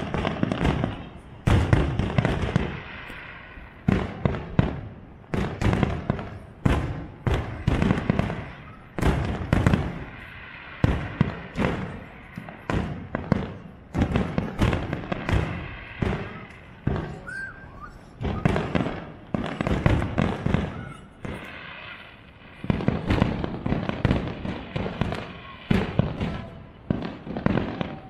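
Aerial fireworks shells bursting one after another, sharp bangs about one to two a second with crackling and rumbling echo between them, thinning briefly past the middle and coming thicker near the end.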